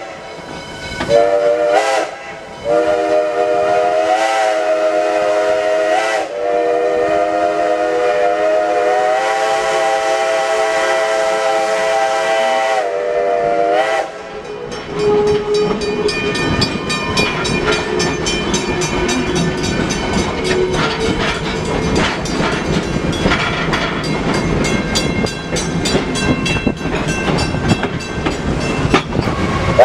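Reading six-chime steam whistle on Pennsylvania Railroad 0-6-0 switcher No. 643, blown in a short blast about a second in and then one long chord of about eleven seconds. When it stops, the moving steam locomotive is heard with a rapid rhythmic clatter.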